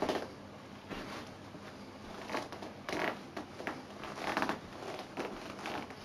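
Footsteps in stiff new Dr. Martens 1461 leather shoes on carpet: a string of soft, uneven scuffs and rustles, roughly one or two a second.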